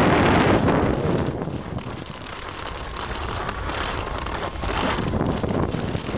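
Wind rushing over the microphone of a kite skier moving across the ice. It is loud at first, eases about a second or two in, then builds again.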